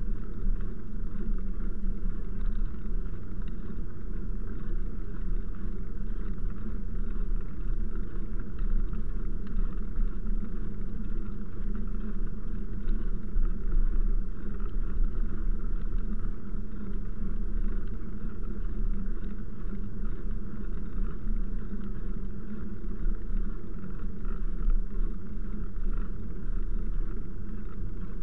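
Steady low rumble of a ride along paved paths: tyre and wind noise picked up by a camera mounted on the moving vehicle.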